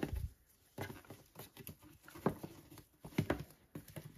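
Hands tying a ribbon on a cardboard box: soft rustling of the ribbon with scattered light taps and brushes of fingers on the cardboard.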